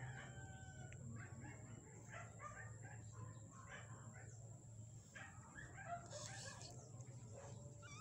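Faint animal calls, many short ones in quick succession, over a low steady hum.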